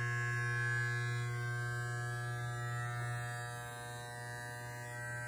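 Electric hair clippers running with a steady buzz while lining up a beard, a little quieter in the second half.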